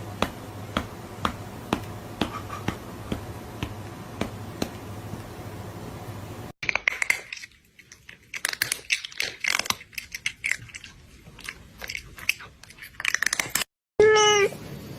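A run of edited snippets. First come sharp clicks about two a second over a low hum. After a hard cut, irregular crunching and chewing noises follow. Near the end, a short meow rises in pitch.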